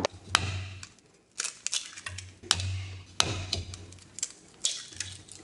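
Eggs being cracked against the edge of a mixing bowl: a series of short, sharp taps and cracks of eggshell.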